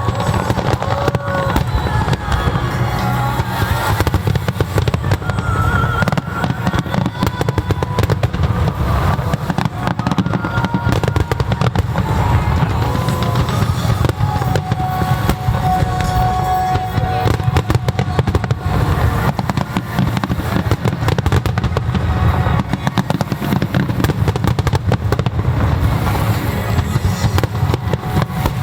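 Starmine fireworks bursting in rapid, continuous succession, with the display's accompanying music playing underneath.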